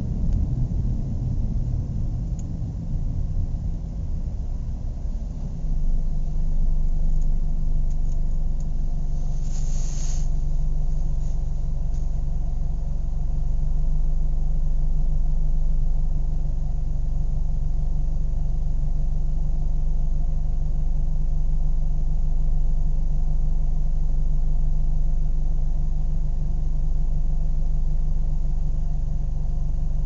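Car engine idling with a low, even rumble. It is rougher for the first few seconds, then settles into a steady idle. A brief high-pitched chirp comes about ten seconds in.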